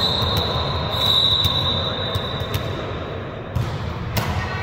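A referee's whistle blown in one long, steady, high-pitched blast of about two and a half seconds over gym crowd noise, followed by a sharp thump near the end.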